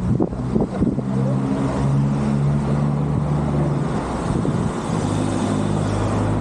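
Road traffic passing: the steady hum of car engines, with wind gusting on the microphone in the first second.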